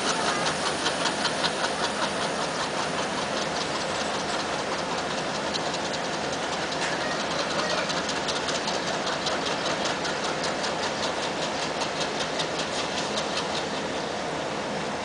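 Indian Railways diesel locomotive engine running with a rhythmic throb as the locomotive approaches slowly on the curve.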